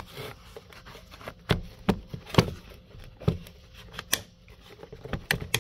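Handling noise: a dozen or so sharp, irregular clicks and knocks of hard objects being picked up and moved about.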